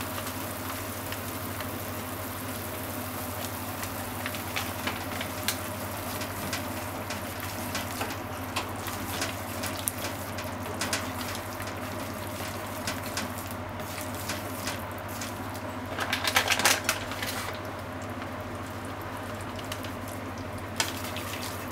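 Ground pork simmering in a brothy sauce in a frying pan, bubbling and crackling steadily, with a louder burst of crackling about sixteen seconds in. A steady low hum runs underneath.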